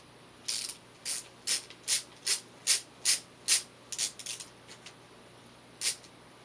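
A new toolkit screwdriver being worked by hand: eight sharp, evenly spaced clicks at about two and a half a second, then a few scattered clicks and one last click near the end.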